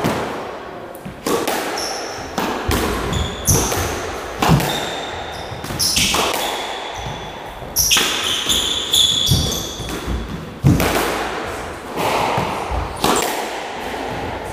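Squash rally: the ball cracking off rackets and the walls every second or two, echoing around the court, with short squeaks of the players' shoes on the wooden floor between strikes.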